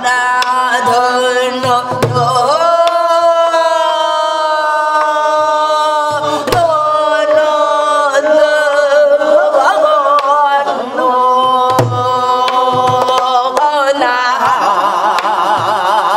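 A woman singing Korean gueum, a wordless vocal melody, in long held notes that bend and waver, over scattered drum strokes of a gutgeori rhythm.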